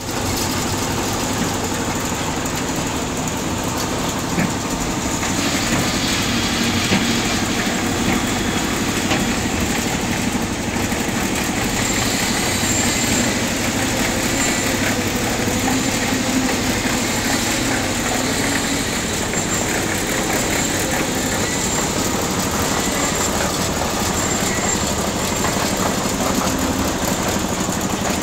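Engine of a drum concrete mixer running steadily, mixing concrete for a roof slab pour.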